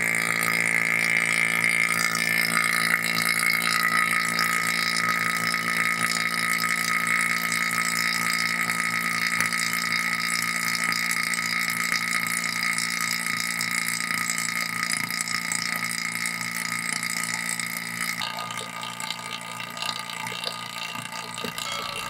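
Electric refrigeration vacuum pump running with a steady buzzing hum, pulling the air conditioner's refrigerant system down to a deep vacuum to draw out air and moisture. Its low hum thins out a few seconds before the end.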